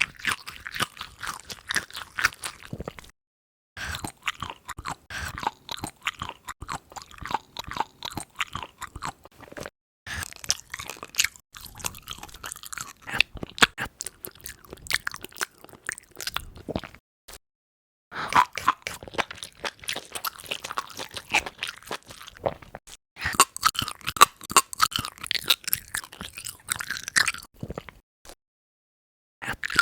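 Close-miked ASMR eating sounds: rapid crunching and wet chewing. They come in several runs, each broken off by a short stretch of dead silence.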